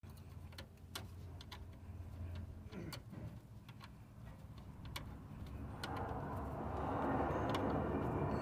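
Scattered metallic clicks of a 13 mm spanner working the terminal nut on a truck alternator, over a low steady hum. A soft rushing noise builds from about six seconds in.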